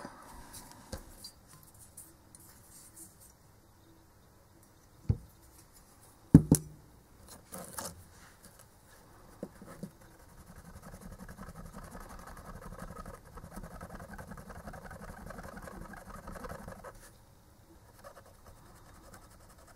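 Two sharp knocks about five and six seconds in, then a steady soft scratching for about seven seconds: a cotton swab wet with isopropyl alcohol scrubbing the solder joints of a hard drive's control circuit board clean.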